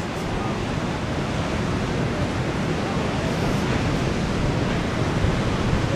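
Ocean surf breaking and washing on a beach break, a steady rush of white water with some wind on the microphone.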